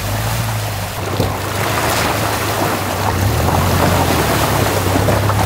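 Toyota Land Cruiser SUV driving through a shallow stream: a steady low engine hum under the rush and splash of water thrown up by the tyres, the splashing swelling from about a second in.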